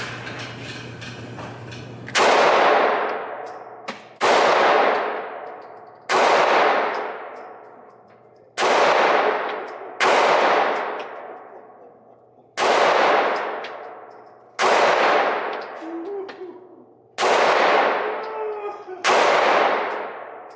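Handgun fired slowly at an indoor range: nine single shots about two seconds apart, each followed by a long echoing decay.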